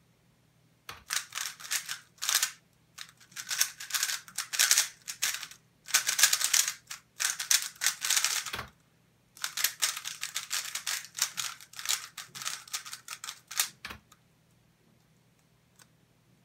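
MoYu Weilong GTS3M Lite 3x3 speedcube being turned at speed: dense runs of rapid plastic clicking and clacking from the layers, in about four stretches with short pauses between, and a few dull knocks.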